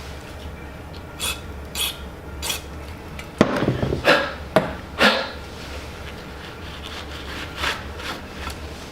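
Hand tools working metal on a Honda B18 cylinder head: a series of short, separate scraping and clicking strokes, loudest in a cluster near the middle, over a steady low hum.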